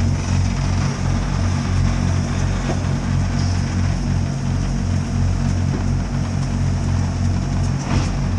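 Norfolk and Western Class J 611, a 4-8-4 steam locomotive, moving at low speed: a steady low rumble with a hiss of steam over it, and a short click near the end.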